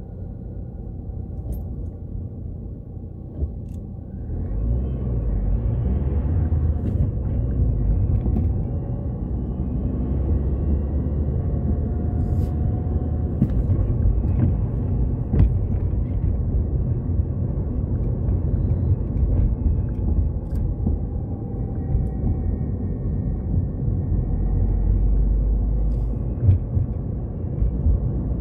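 Car driving, heard from inside the cabin: a steady engine and tyre rumble. It is quieter at first while the car waits behind another car, then grows louder about four seconds in as the car pulls away and keeps driving.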